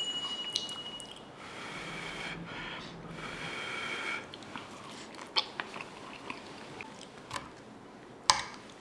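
A person chewing food close to the microphone, with several sharp clicks in the second half.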